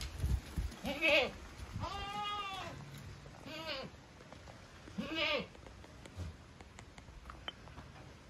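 Savanna goats bleating four times, the second bleat the longest.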